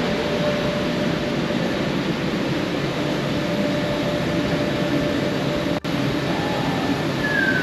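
Steady background rumble and hiss with a faint constant hum, cut by a brief dropout about six seconds in. A short high tone falls in pitch near the end.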